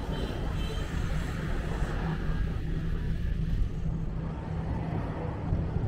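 Steady low rumble of street traffic, with a faint engine hum running under it.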